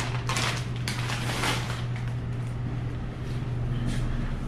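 Steady low hum of shop background noise. Two or three brief noisy scuffs or rushes come in the first couple of seconds.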